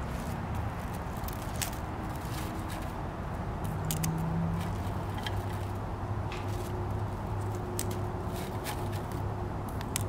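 Leather leaf fern fronds rustling and stems ticking as they are pushed into a taped glass cube vase: scattered short clicks and rustles, over a steady low hum.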